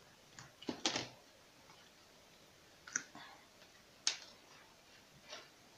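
Light clicks and taps of hands handling wire and small tools on a wooden tabletop: a short cluster of rustling clicks about a second in, then single sharp clicks near three and four seconds in and a softer tap after five.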